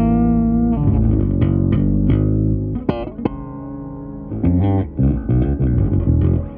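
Fender Japan Boxer Precision electric bass played fingerstyle: a run of plucked notes, some sliding in pitch. The playing eases to a quieter held stretch for about a second and a half in the middle, then picks back up.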